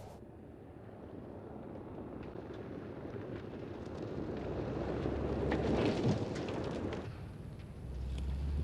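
Mercedes GLC SUV driving fast over a dirt and gravel track, tyres crunching on loose stones and engine running, growing louder to a peak about six seconds in as it passes. The sound then falls away, and a steady low rumble takes over near the end.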